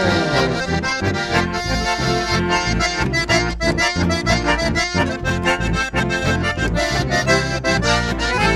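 Live chamamé band playing an instrumental passage: accordions carry the melody over acoustic guitar and electric bass, with a steady dance beat.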